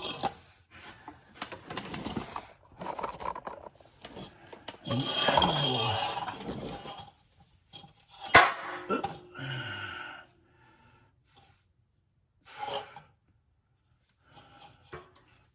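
Metal tools and a work light being handled and moved about under a vehicle: irregular clinking, scraping and rustling, with one sharp clank about eight seconds in. It then goes nearly quiet for the last few seconds.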